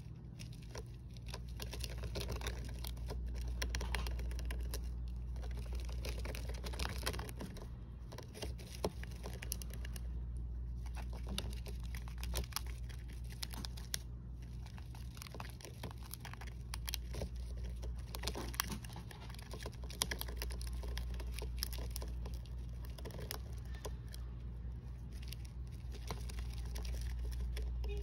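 Dwarf hamster gnawing and rummaging in wood-shaving bedding: a dense, uneven run of small clicks, scratches and crinkles, over a steady low hum.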